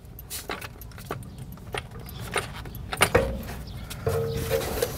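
Light metallic clicks, clinks and knocks as a gloved hand wiggles a BMW M3's rear aluminium control arm and wheel carrier into line on a jack. A sharper knock comes a little after three seconds, and a steady pitched hum joins about four seconds in.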